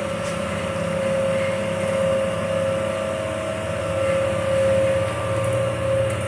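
Electric wood-press (ghani) oil machine running steadily while crushing mustard seed: a constant motor hum with a steady mid-pitched whine.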